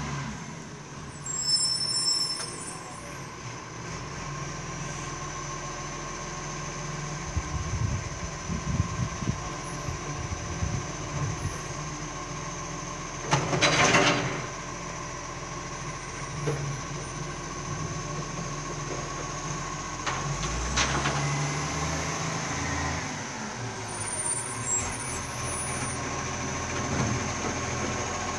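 Side-loader garbage truck's diesel engine running as the truck moves along the street. A short, loud air-brake hiss comes about halfway through, and the engine swells again a little later.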